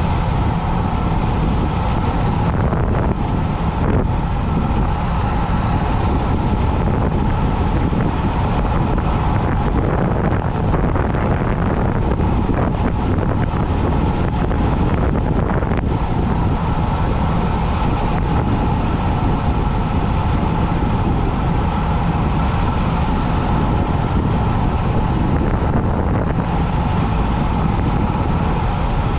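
Wind rushing over the microphone of a bicycle descending at speed, a loud steady noise with a faint steady hum underneath.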